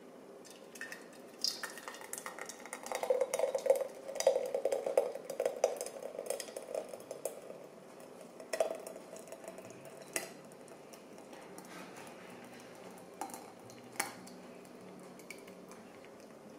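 A utensil scraping and clinking against a pan as thick white gravy is poured out of it into a gravy boat. The scraping is busiest in the first half, then gives way to a few separate clinks.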